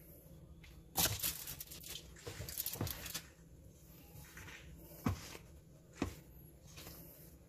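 Aluminium foil crinkling as a ball of dough is set down on it, then soft handling noise of dough being pinched and torn in a stainless steel bowl, with two short sharp knocks about five and six seconds in.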